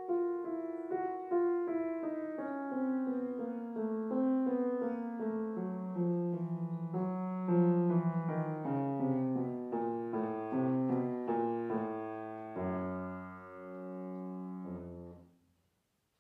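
Solo grand piano playing a fast passage that steps steadily downward for about twelve seconds. It ends in a few held low chords, which are cut off about fifteen seconds in, leaving a silent pause.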